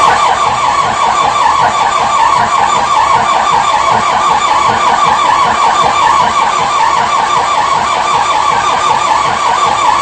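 Zetor 6245 tractor's four-cylinder diesel engine running steadily just after a cold start at −3 °C, with a fast, even firing beat. This is a worn engine that is due for an overhaul.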